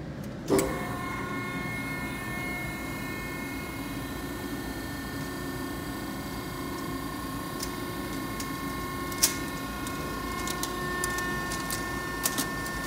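Cram-A-Lot baler's overhead hydraulic motor and pump kick on with a clunk about half a second in, then run with a steady whine and hum as the platen presses down on plastic. Sharp cracks of plastic hangers snapping come about nine seconds in and twice near the end.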